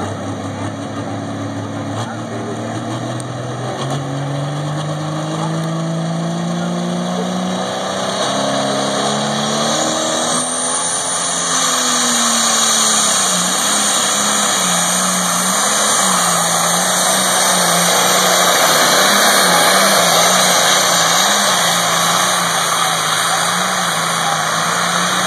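International 1066 tractor's diesel engine at full throttle under heavy load, dragging a weight-transfer sled. Its pitch climbs steadily for about the first twelve seconds, then holds high with small wavers, and it grows louder toward the end.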